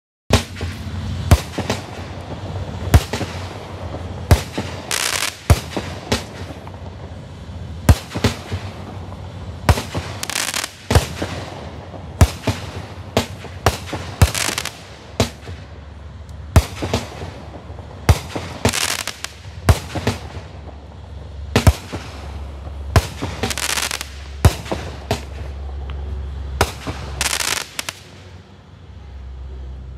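Black Cat "Don't Tread On Me" fireworks cake firing: a long run of sharp shots about one to two seconds apart, several followed by hissing crackle. The shots stop near the end, leaving a low rumble that dies away.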